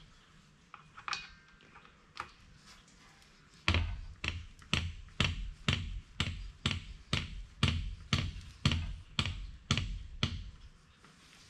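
Hand grease gun being pumped in a steady run of sharp clicks, about two and a half strokes a second, starting about four seconds in and stopping near the end. It is forcing grease into the nipple of a truck tailshaft's universal joint until the joint is full and grease comes through.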